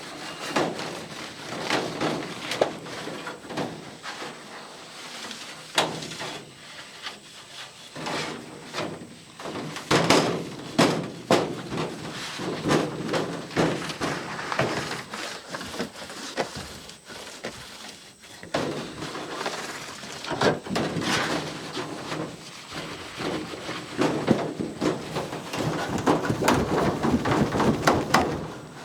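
Thin aluminum airplane parts being handled and cleaned up at the bench, with irregular clicks, knocks and clatter and stretches of scraping and rustling, as the protective plastic coating is peeled off and the parts are readied for primer.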